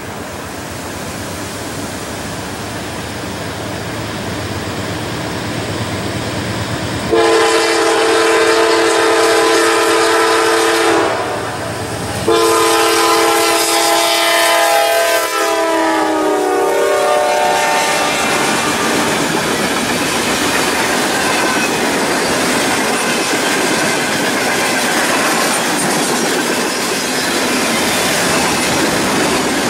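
Norfolk Southern GE D9-40CW freight locomotive approaching with a rising rumble, then sounding its air horn in two long blasts. The second blast drops in pitch as the locomotive passes. After that the freight cars roll by, with their wheels clicking over the rail joints.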